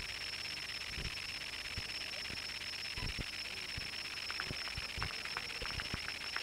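Steady hiss and a fixed high whine from an old analogue camcorder recording, with low thumps now and then and a run of light clicks in the last two seconds.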